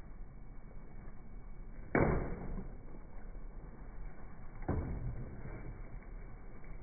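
Two sharp hits about two and a half seconds apart, the first the louder: a swung club or blade striking, the second as a plastic jug of water on a pickup's bed is hit and bursts.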